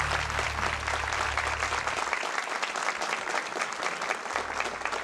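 Studio audience applauding at the end of a live folk song, dense steady clapping. A low held tone left over from the music dies away about two seconds in.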